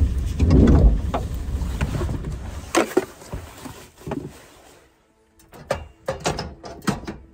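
Rustling and knocking of someone moving about in a small van interior, then, after a sudden drop in level, a quick run of sharp metallic clicks and clinks as a stovetop kettle is handled on a portable gas stove.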